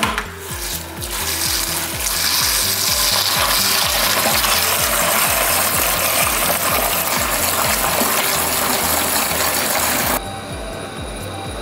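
Water from the tankless water heater's drain hose rushing into a 5-gallon bucket as fresh water flushes the leftover vinegar out of the heater; a loud steady rush that starts about a second in and cuts off suddenly near the end. Background music with a steady beat underneath.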